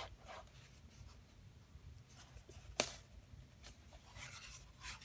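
Pages of a glossy book being handled and turned by hand: faint paper rustling, with one sharp click a little under three seconds in and more rustling near the end.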